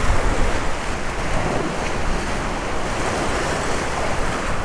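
Surf breaking and washing against the jetty's rock blocks, a steady rushing with no separate hits. Wind buffets the microphone underneath with a low rumble.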